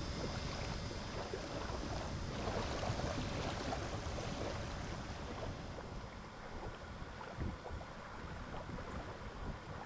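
Water splashing and lapping around a sea kayak, with wind buffeting the microphone.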